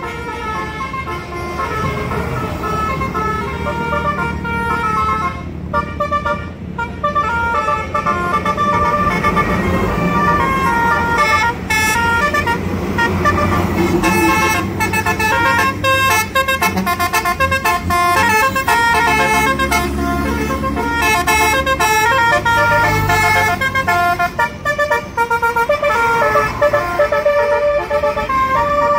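Tour bus Basuri musical horn, its roof-mounted trumpets playing a tune as a series of held, stepping notes, over a low rumble.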